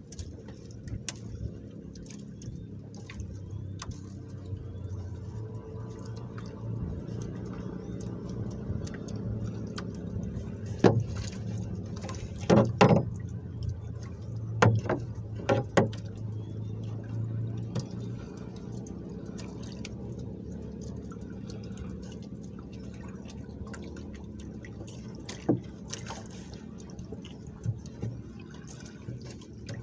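Hand-line fishing from a small boat: several sharp knocks against the boat about eleven to sixteen seconds in as a small fish is hauled up on the line and handled, with one more knock later, over a steady low hum.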